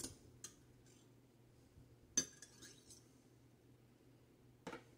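A metal stirring tool clinking a few times against a glass cup of heated liquid soft plastic as glitter is mixed in. The clinks are sparse and faint, the loudest about two seconds in.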